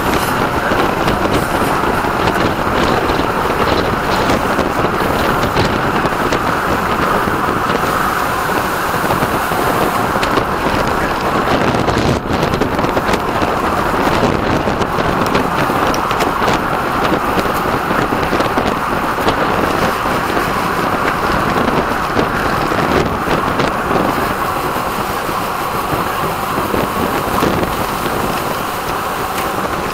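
Steady rush of wind over the microphone, mixed with tyre and road noise from a road bike riding at race speed.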